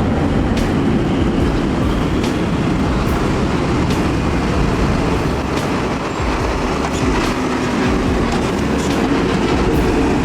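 A heavy vehicle running steadily and loudly, with scattered faint clicks over a dense noise.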